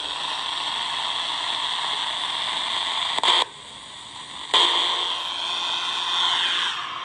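Tecsun R9012 shortwave radio hissing with static from its speaker as the band is changed. About three seconds in there is a click and the hiss drops for a second. Then the static returns with a steady low tone and faint whistles sliding in pitch.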